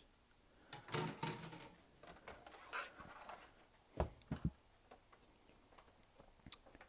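A screwdriver scraping and prying at the Xbox 360's plastic side vent cover, with a sharp click about four seconds in and a second just after, typical of a retaining clip letting go, then light plastic ticks.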